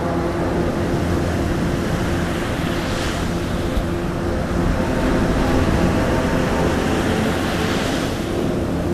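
Ambient background track: a steady rushing wash like surf, with faint held tones underneath. It swells briefly about three seconds and eight seconds in.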